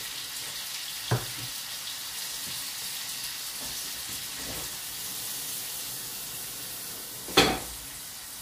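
Sea bass fillets and a vegetable garnish sizzling in pans on a gas hob, a steady frying hiss. A short knock comes about a second in, and a louder knock, the loudest sound, comes near the end.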